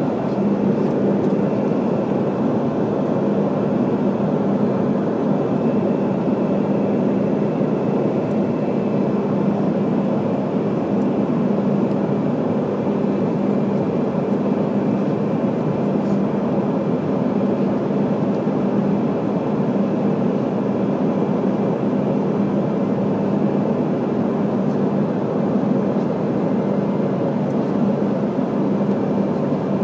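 Steady cabin noise inside a Bombardier CRJ-200 regional jet in flight: rushing air and the drone of its two rear-mounted GE CF34 turbofans, with a steady low hum under it.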